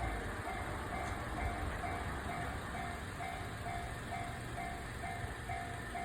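Japanese level crossing's electronic warning bell ringing steadily at about two strokes a second, over the rumble of a passing train.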